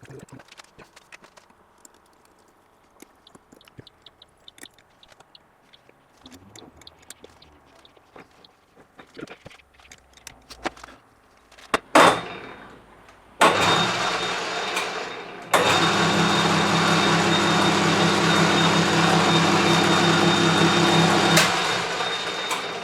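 A few light handling clicks, then a short loud burst of noise, then a workshop machine motor starting up and running steadily for about eight seconds, getting louder a couple of seconds in, before it is switched off and spins down.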